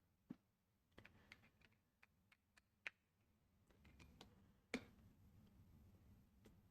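Faint, scattered small clicks and taps of hands handling small hardware, with one sharper click about three-quarters of the way through.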